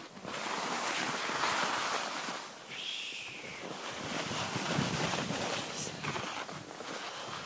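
Skis hissing and scraping over hard, choppy snow while skiing downhill, with wind noise on the microphone. A brief squeak comes about three seconds in.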